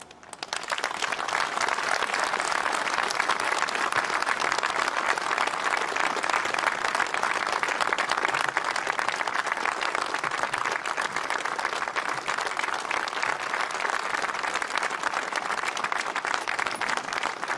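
Audience applauding, the clapping swelling up within the first second and then holding steady.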